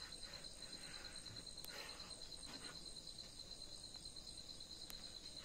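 Faint, steady high-pitched trilling of crickets, with soft scraping of a kitchen knife cutting through rolled dough about one to two seconds in.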